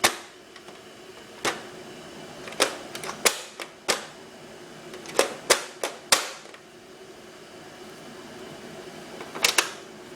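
Sharp, irregular knocks and taps, about a dozen in quick clusters with a lull before a last pair: a baby in a high chair banging his toy keyboard.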